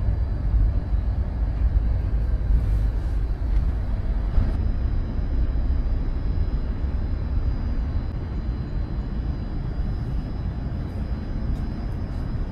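Steady low rumble of building demolition work with heavy machinery running. A faint, high, steady whine joins about four and a half seconds in.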